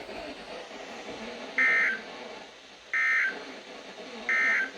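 Emergency Alert System end-of-message signal: three short bursts of digital SAME data tones, about 1.3 seconds apart, over a faint radio hiss. It marks the end of the broadcast severe thunderstorm warning.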